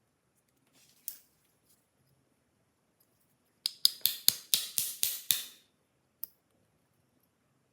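A quick run of about eight sharp clicks over roughly two seconds, with a single click before and another after.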